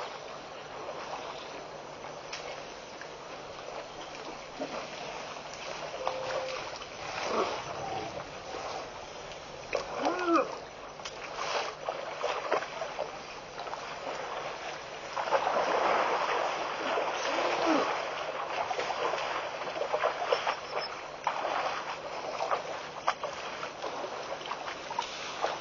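Elephants drinking at a waterhole: water splashing and sloshing in uneven bursts as trunks dip into and draw from the water, loudest in the second half. A couple of short pitched calls rise and fall along the way.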